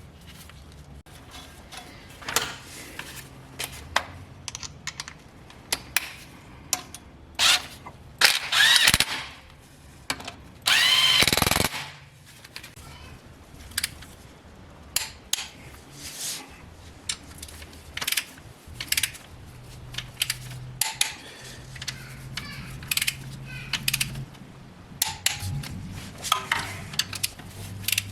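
Metal tools clinking and knocking against engine parts during mechanical repair work, with irregular sharp clicks throughout. Near the middle there is a loud whirring burst of about a second, like a power tool.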